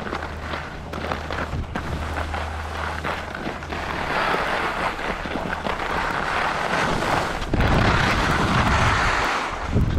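Skis sliding and scraping over groomed piste snow at speed, a steady hiss that grows louder about four seconds in. Wind buffets the microphone with a low rumble over the last two or three seconds.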